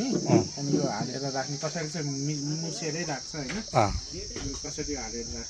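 Steady high-pitched insect chorus, a continuous shrill buzz, with a person's voice talking over it for the first four seconds or so.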